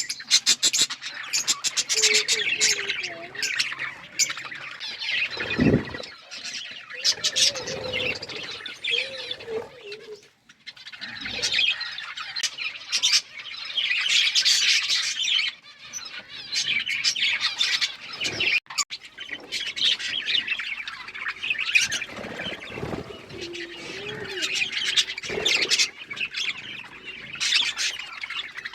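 A flock of small Australian parrots chirping, chattering and squawking over one another without pause, with a few brief low thumps in between.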